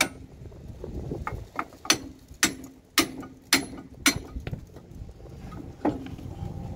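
Hammer blows on the front wheel hub and brake rotor of a 2000 Ford F-150, knocking at a hub bearing that will not come loose. There is one sharp metal strike at the start, then five more about half a second apart from about two to four seconds in, each followed by a short metallic ring, and a last strike near six seconds.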